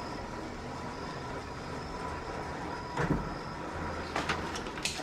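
Car engine running at low speed as the car pulls up, with a heavier thud about three seconds in and a few sharp clicks after it.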